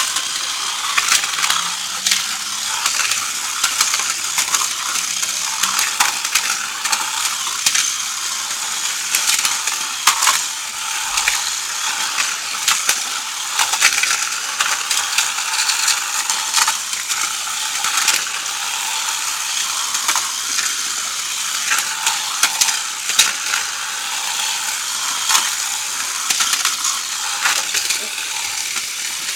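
Two Crush Gear battle toy cars running flat out, their small electric motors and gearboxes giving a steady high whir, with a constant rattle of plastic knocks and clatters as they ram and grind against each other and the arena wall.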